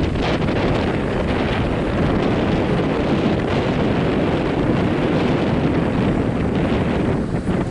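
Steady wind buffeting the microphone on a car ferry's open deck, over the ferry's engines running as it approaches its berth.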